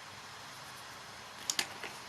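Steady faint hiss, with three quick light clicks near the end, the first two close together.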